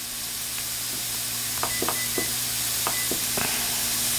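Diced onion, celery and shredded carrot sizzling in oil in a hot stainless steel skillet, the sizzle growing steadily louder. A little under halfway in, a quick run of short clicks and high beeps as a kitchen timer is set for five minutes.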